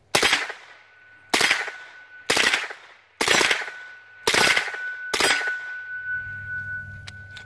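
Suppressed CMMG MK9 9mm carbine, converted to fully automatic, fired in six short bursts about a second apart. It is firing supersonic 115-grain ammunition through an AAC Tyrant 45 suppressor.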